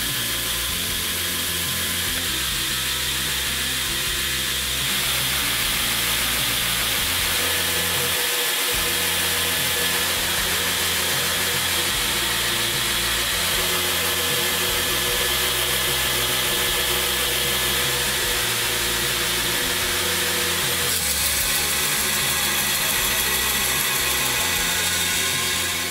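Homemade belt grinder running steadily, its three-phase electric motor driving the abrasive belt. Over the last few seconds it sounds harsher and brighter as a thin metal plate is held against the belt.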